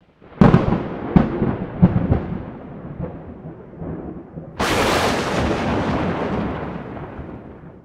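Thunder: a sudden sharp crack about half a second in, with a few more crackles over the next second and a half, rolling into a rumble that dies down. About four and a half seconds in, a second loud clap breaks in abruptly and fades slowly.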